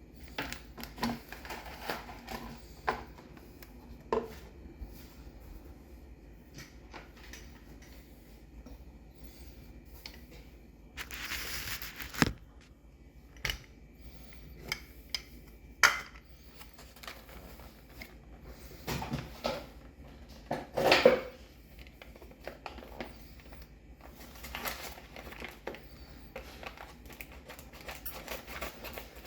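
Kitchen items being handled while a coffee maker and paper filter are set up: scattered clicks, knocks and light clatter, with a brief rustle about eleven seconds in and a louder burst of rustling and clatter around twenty seconds in.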